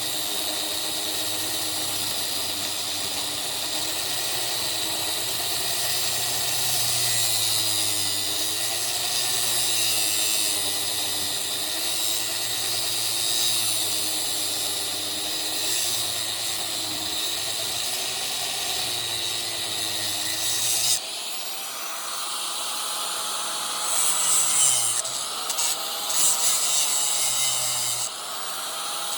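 Angle grinder running and cutting into the air conditioner's metal, its motor pitch rising and falling as the load changes. About 21 seconds in the sound changes abruptly, thinner and harsher, with short bursts of grinding near the end.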